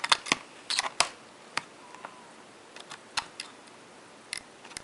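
Small sharp metal clicks and taps at an irregular pace, a cluster in the first second and a few scattered after: a small screwdriver working the captive screws of a white MacBook's metal RAM cover plate back in.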